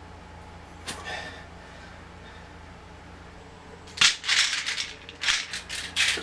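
A hand grabbing a bottle out of a metal wire rack: a sharp knock about four seconds in, then a string of clatters and scrapes.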